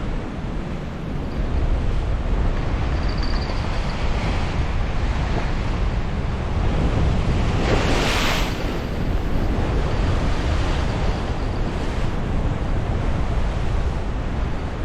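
Surf on a rocky shore with wind buffeting the microphone in a steady low rumble; about eight seconds in, a wave breaks and washes over the rocks in a swelling hiss that fades after a second or so.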